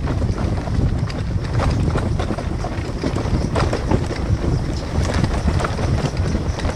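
Wind buffeting the microphone in a steady low rumble while riding a rough dirt road, with scattered knocks and rattles from the bumps.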